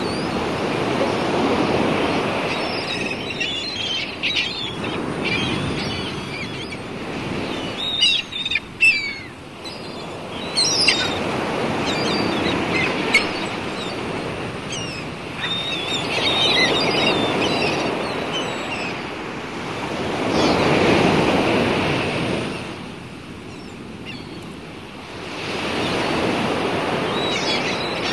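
Sea waves washing in slow swells that rise and fall every few seconds, with birds giving short high chirping calls over them, most in the first half.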